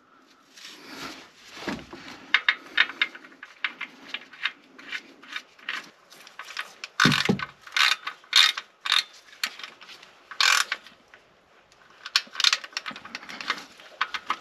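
Ratchet wrench clicking in short runs as the oil drain plug, fitted with a new seal, is screwed back into the sump. A few of the clicks are louder.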